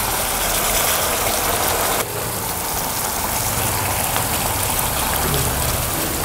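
Red gravy poured into a hot pan of ghee and spices, sizzling hard as it hits the hot fat. The hiss changes abruptly about two seconds in and carries on as a steady sizzle.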